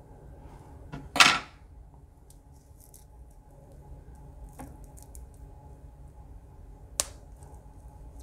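Small handling sounds at a fly-tying vise while a weed guard is fitted into a jig head: one loud short rasp about a second in, a sharp click near the end, and faint small clicks between.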